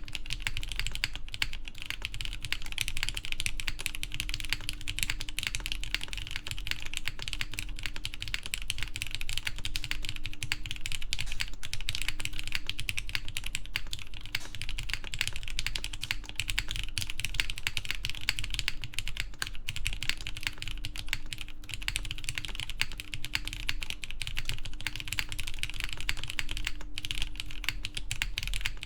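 Continuous typing on a Matrix 8XV3.0 mechanical keyboard with lubed Cherry MX Black Clear Top linear switches on 78 g springs, an aluminium plate and GMK keycaps. The key strokes come in a dense, even stream with no real pauses.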